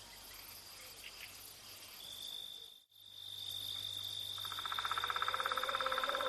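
Night insects: a steady, high cricket trill, cut off by a brief dropout near the middle, then joined a little after four seconds in by a louder, fast pulsing trill at about ten pulses a second.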